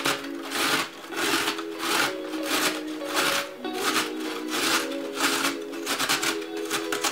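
Carrot being grated on a metal box grater: repeated rasping strokes, roughly two to three a second, with background music underneath.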